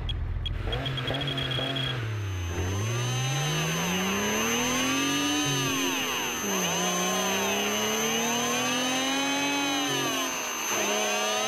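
A motor revving sound effect in an electric fishing reel advert: a whine that dips and climbs in pitch twice, with a thin high steady tone above it. A quick run of ticks comes in the first two seconds.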